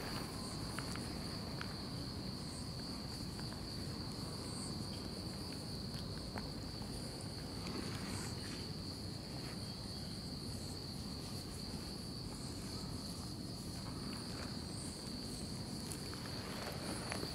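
Insects trilling in one steady high-pitched tone, with a few faint soft clicks.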